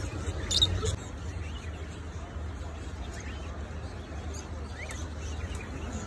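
Small caged birds chirping, short high calls scattered throughout with one louder call about half a second in, over a steady low hum.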